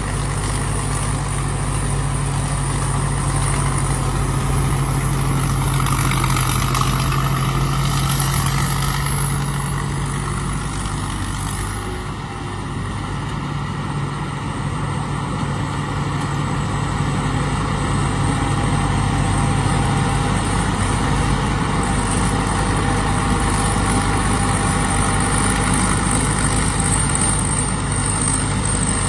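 Combine harvester's diesel engine running steadily, a continuous mechanical drone that eases off slightly about twelve seconds in.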